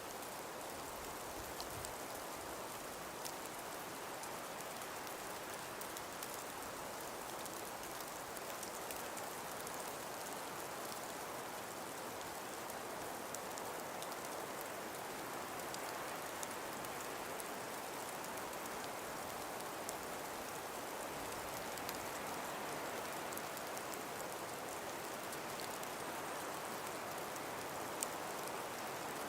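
Calm winter breeze through a forest, a steady even rushing hiss with faint scattered ticks throughout.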